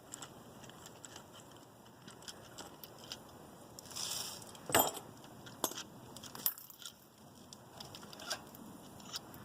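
Light metallic clicks and clinks of tools and small clutch parts being handled on a dirt bike, with one sharper clink about five seconds in.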